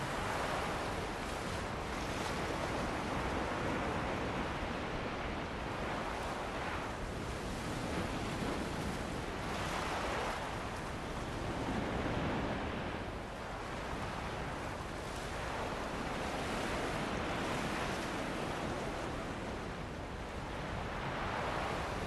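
Ocean surf washing onto a beach in a continuous noise that swells and eases every few seconds as waves break, with wind blowing over it.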